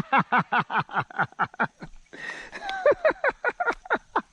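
A person laughing: a rapid string of short falling "ha" syllables, about five a second, with a brief pause about two seconds in.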